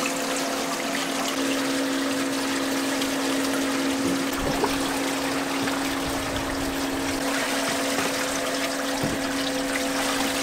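Water running steadily on a fishing boat's deck, over a constant low hum from the boat's machinery.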